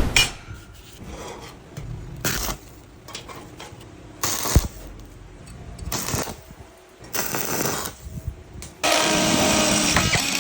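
Metalworking tool noise in separate short bursts, then a longer steady stretch of power-tool sound from about nine seconds in.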